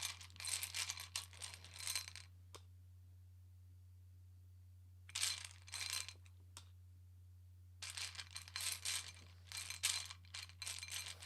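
Tarot cards and small tokens being handled on a table: quick rustling and clicking in three spells with quiet pauses between, over a steady low hum.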